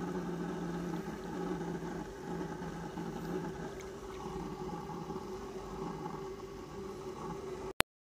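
Fermented cow and buffalo urine pouring from a hose into a bucket, over a steady low motor hum. The sound breaks off with a click near the end.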